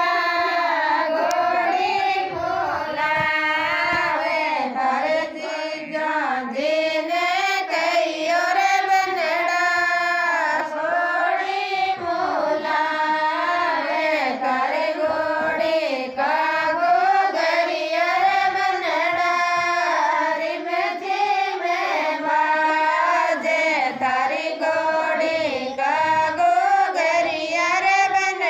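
A woman singing a Rajasthani wedding song (banna geet, ghodi geet) solo and unaccompanied, one ornamented melodic line that bends up and down and runs on with only short breaths between phrases.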